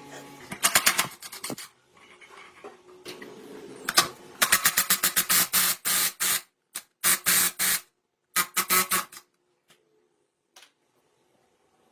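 Several short bursts of rapid mechanical clicking, each lasting under two seconds with brief gaps between them, dying away to a couple of faint ticks near the end.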